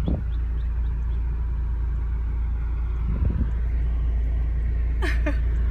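Steady low rumble of a car, heard from inside its cabin as it drives along.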